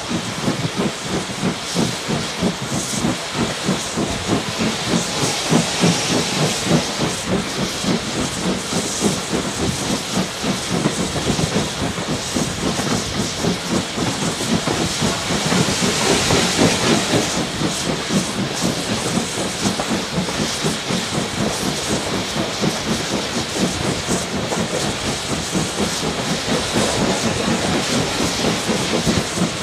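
Steam locomotive working under steam, heard from the footplate: quick, even exhaust beats over a constant hiss of steam. The sound grows louder for a moment about halfway through as the engine passes under a bridge.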